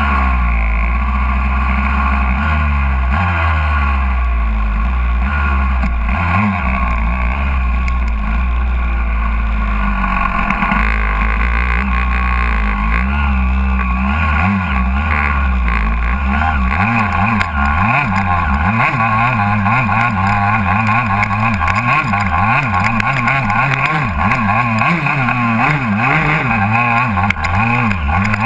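Honda CR125's two-stroke single-cylinder engine running under a rider on a dirt trail. From about halfway through, the revs rise and fall over and over as the bike pushes through a long, deep puddle, with water spraying off the front wheel near the end.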